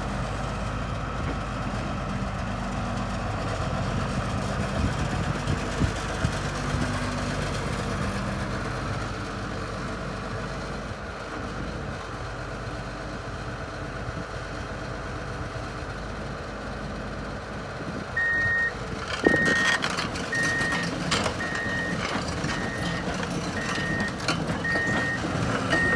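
Volvo EC240LC excavator's Cummins C8.3 six-cylinder diesel running steadily. About two-thirds of the way in, a travel alarm starts beeping at a steady single pitch about once a second, joined by sharp metallic clanks.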